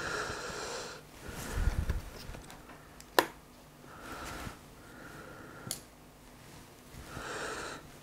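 A man's heavy breathing through the nose close to the microphone, about five noisy breaths a second or two apart. A sharp click a little after three seconds in, a smaller one near six seconds, and a low bump of handling noise around two seconds.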